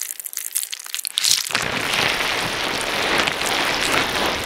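Crackling, crunching sound effect of sharp scattered crackles that, about a second and a half in, thickens into a dense, steady crackling hiss and cuts off suddenly.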